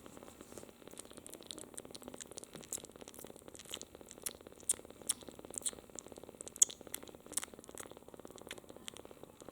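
Two-week-old kitten licking and sucking on a finger, a string of small wet clicks at an uneven pace, with a fast, even purr underneath.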